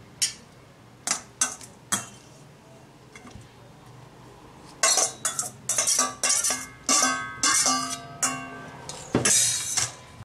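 Stainless steel utensils clinking: a spoon taps a few times inside a steel mixer-grinder jar. Then, from about halfway through, a steel bowl knocks and rings against the jar in a quick run of metallic clinks as boiled greens are tipped in.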